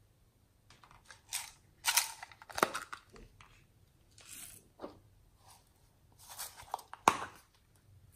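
Hands pressing and working slime mixed with clay and glitter, making irregular sticky crackles with a few sharp pops, loudest about two seconds in and again about seven seconds in.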